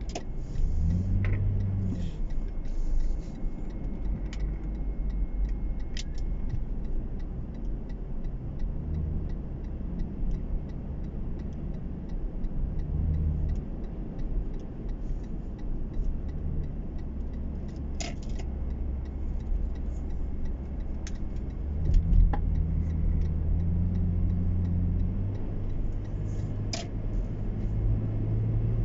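Car cabin noise while driving on a highway: a steady low engine and road rumble, with the engine note rising about a second in and swelling again past the middle. A few sharp clicks stand out over it.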